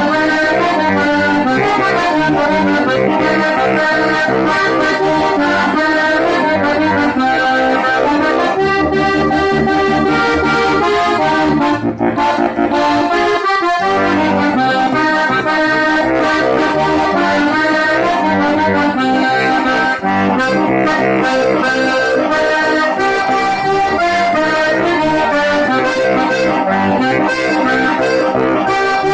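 Accordion-led folk music playing steadily, with a brief dip about twelve seconds in.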